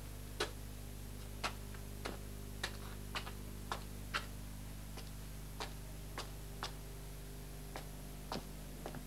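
Footsteps on hard pavement: a slow, uneven run of sharp steps, about one or two a second, over a low steady hum.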